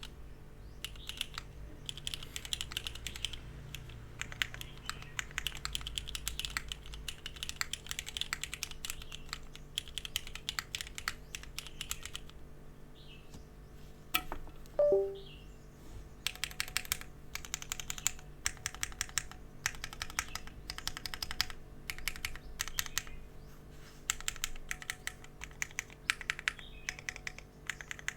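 Typing on a Sagrada gasket-mount mechanical keyboard with Cherry Black linear switches and GMK keycaps, in fast runs of key clacks with short pauses. About halfway through, a brief falling tone stepping down in pitch is the loudest sound.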